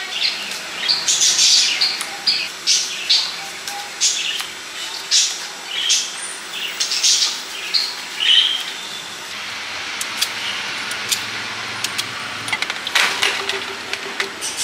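A blade peeling the skin off firm green fruit in quick scraping strokes, about two a second, for the first eight seconds. After that come quieter, scattered clicks and handling sounds.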